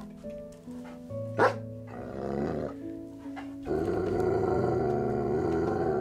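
A dog growling over background music: a short rough growl about two seconds in, then a longer, louder growl through the last two seconds. A short sharp sound comes about a second and a half in.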